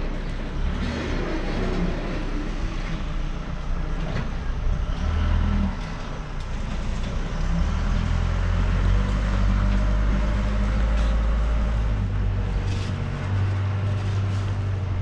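Diesel engine of a Caterpillar 120G motor grader running steadily with a low rumble that gets somewhat stronger about halfway through.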